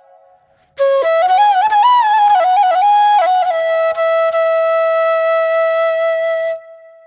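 Solo flute music: after a brief gap, an ornamented melodic phrase with quick turns, then one long held note that cuts off shortly before the end.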